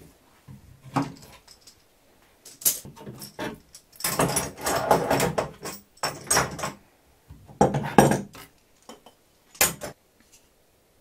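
Steel bar clamps being loosened and taken off a glue-up, their metal bars and jaws rattling and knocking as they are handled and set down: irregular clatter, busiest in two bursts in the middle, with one last sharp knock near the end.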